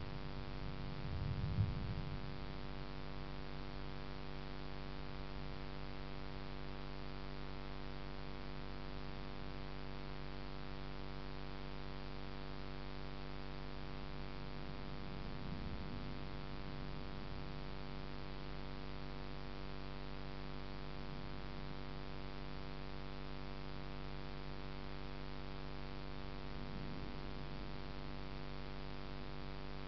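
A steady hum made of many evenly spaced tones, with low rumbles of distant thunder about a second in, about halfway through and near the end.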